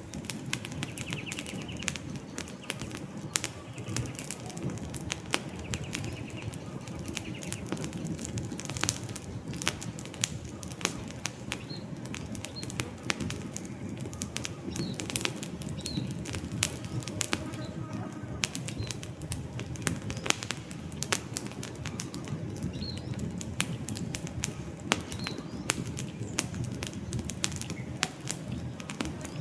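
Campfire burning: wood crackling with frequent, irregular sharp pops over a steady low rustle of the flames.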